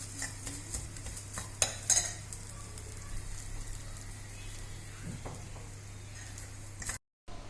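Grated coconut, onion and green chilli sautéing in coconut oil in a pan: a low sizzle while a spoon stirs, with several sharp taps against the pan in the first two seconds, then quieter stirring. The sound cuts off suddenly near the end.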